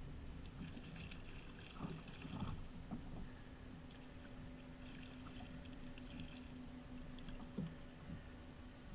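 Fishing reel cranked in two short stretches as a hooked small striped bass is fought up to the kayak, with a few light splashes and knocks of the fish at the surface.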